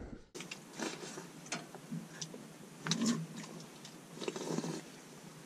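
Light scattered clicks and rustles of people eating from bowls with chopsticks, with small flurries of taps a few times.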